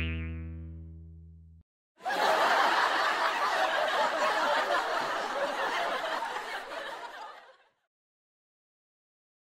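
A short musical chord rings and fades away over the first second and a half. Then a laugh track of a crowd laughing runs for about five and a half seconds before dying out.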